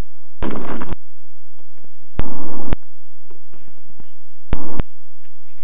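Three short bursts of static-like noise, each switched on and off abruptly with a click, over a faint hiss.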